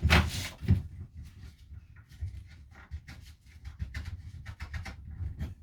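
Wooden interior fittings being pried and broken out of a camper van: an irregular run of cracks, knocks and creaks, loudest in the first second.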